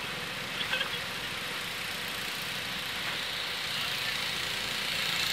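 A car coming along the road, its engine and tyre noise growing louder toward the end.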